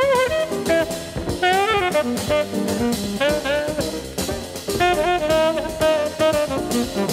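Jazz record playing: a tenor saxophone carries the melody with vibrato on its held notes, over a rhythm section with drums.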